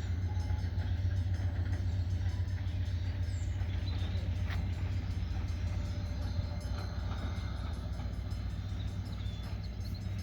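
Diesel locomotive engine running steadily with a deep, pulsing rumble that fades a little near the end.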